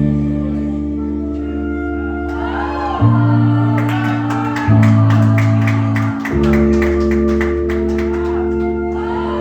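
Hip hop backing track playing without rapping: held low chords that change every couple of seconds, with a fast ticking hi-hat pattern coming in about three and a half seconds in and a brief sung line.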